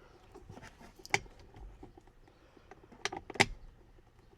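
Hand tool clicking against the back of a steering wheel as a T30 Torx bit is worked at an airbag screw: a few sharp clicks, two close together about three seconds in.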